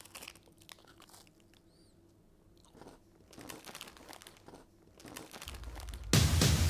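A person chewing and crunching on food, with scattered small clicks and crackles. Loud music comes in near the end.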